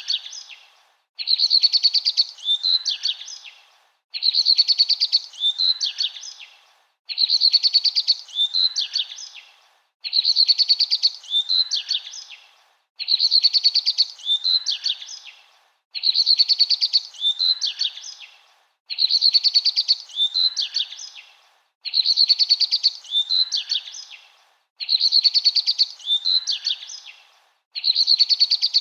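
Bird song in a short loop: the same phrase, a fast high trill followed by a few separate chirps, repeats identically about every three seconds with a brief gap between.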